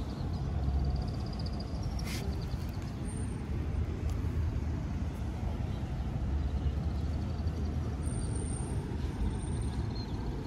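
Steady low rumble of road traffic, with a single sharp click about two seconds in.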